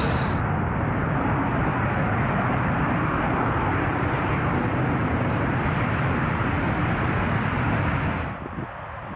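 Jet engine noise from a B-2 Spirit bomber's four turbofans, a steady low rumble with a hiss above it, which drops to a quieter rumble about eight seconds in.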